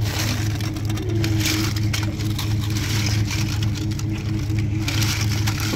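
Plastic toys clattering and rustling as hands rummage through a cardboard box full of them, in several spells of rapid clicks and rustling, over a steady low hum.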